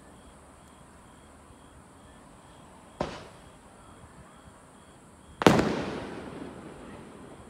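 Two aerial firework shells bursting. A smaller bang comes about three seconds in, and a much louder one about two and a half seconds later, whose boom echoes away over the next two seconds.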